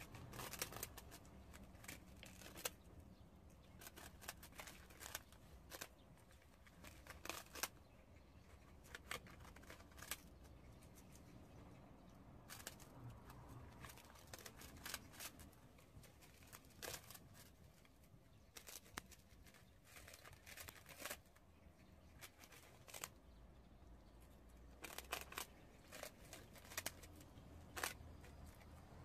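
Prairie dogs gnawing on puffed-rice cakes: faint, irregular crisp crunches and snaps, often in quick little clusters, as they bite pieces off the dry cakes.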